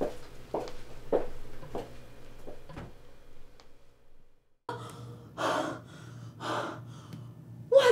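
A person's heavy breaths, starting about five seconds in and ending in a voiced gasp. Before them come soft, regular taps, a little under two a second, then a brief hush.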